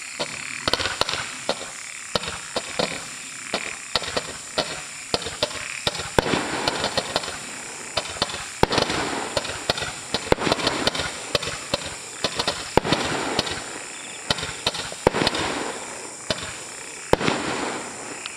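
A Tai Pan Sergeant Popper 56-shot firework candle (14 mm bore) firing. It gives a rapid, irregular string of sharp pops and bangs, several a second, over a continuous hiss.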